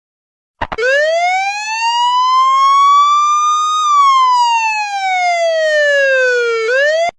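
Emergency vehicle siren in wail mode: after a click it rises slowly in pitch for about three seconds, falls for about three, then starts to climb again and cuts off abruptly.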